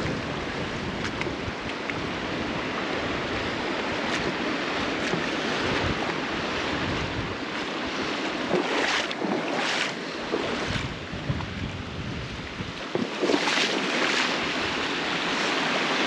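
Shallow river water rushing over rocky ledges and riffles, with wind buffeting the microphone and adding a low rumble through the middle. A few brief louder sounds about halfway through and again near the end.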